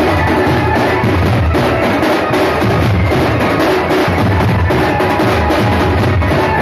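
A band of dhol drums, large double-headed drums beaten with sticks, playing together in a loud, dense, driving rhythm that never lets up.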